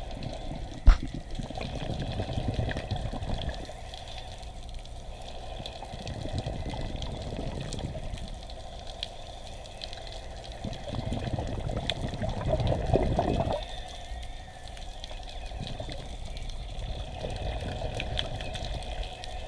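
Underwater, a scuba diver's exhaled bubbles rushing from the regulator in long bursts about every five seconds, with quieter gaps between breaths. A single sharp knock sounds about a second in.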